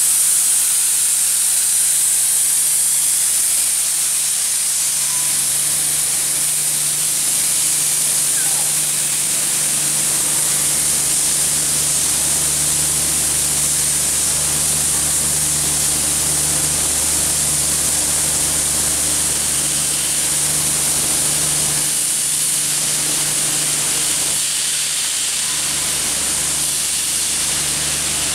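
Steam venting with a steady loud hiss from the cylinder drain cocks of Victorian Railways R class steam locomotive R711, with a steady low hum underneath.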